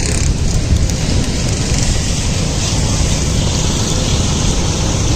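Wind buffeting the microphone: a loud, steady rumbling hiss with no distinct events.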